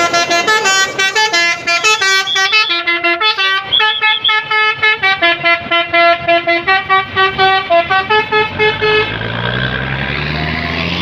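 Bus telolet horn playing a fast melody of short multi-tone notes. About nine seconds in the horn stops and the bus engine is heard revving up, rising in pitch.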